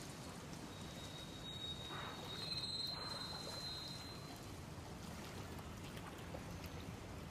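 Faint steady outdoor ambience, a low even hiss, with a thin high tone held from about one to four seconds in.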